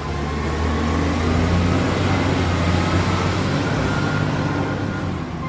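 A heavy road vehicle's engine running steadily: a low hum under a broad rushing noise, easing slightly near the end. It is most likely a truck or bus engine sound effect.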